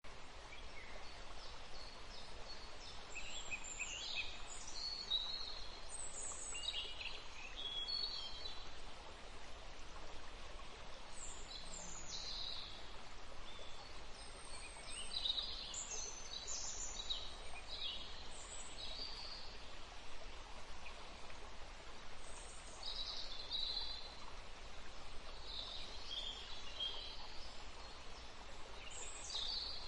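Birds chirping and calling on and off among trees, over a steady hiss of outdoor background noise.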